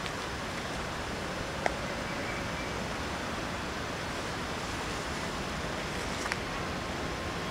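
Steady outdoor hiss and rumble, mostly wind on the microphone, with two brief sharp clicks, one under two seconds in and one around six seconds in.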